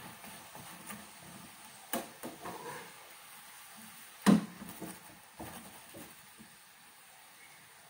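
Metal spoon knocking and scraping against a non-stick frying pan while a chapati is turned and pressed in it: a few sharp clicks, the loudest a little past four seconds in.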